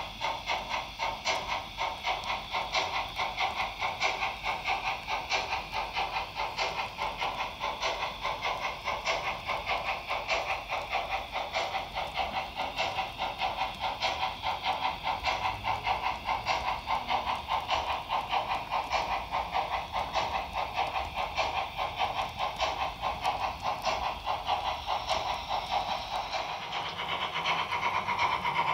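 Sound decoder of a Trix Br 44 HO-scale model steam locomotive playing a steady, rhythmic three-cylinder chuff as the engine hauls a freight train, with model freight wagons rolling on the track. It grows a little louder near the end.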